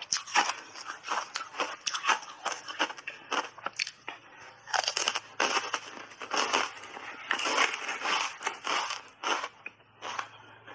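Crunchy frozen berry ice bars coated in matcha powder being bitten and chewed close to a lapel microphone: a quick, irregular run of loud crunches, several a second, with a short lull about four seconds in.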